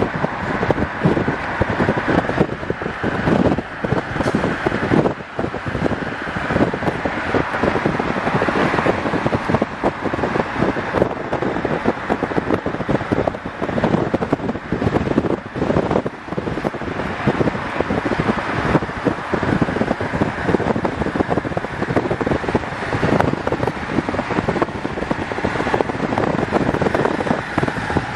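Wind buffeting the microphone: a steady loud rush with irregular flutters.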